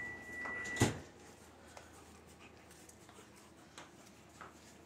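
A Belgian Malinois tugging a rope toy on a tile floor: a steady high-pitched tone ends with a sharp knock just under a second in, followed by faint scattered clicks and scuffs.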